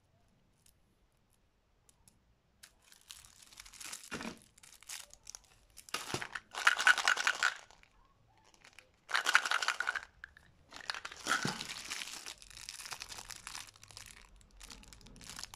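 Candy wrappers crinkled and torn open by hand, in several separate bursts of crackling that begin a few seconds in.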